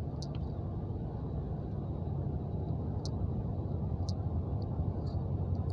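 Steady low road rumble inside the cabin of a moving car, with a few faint high ticks.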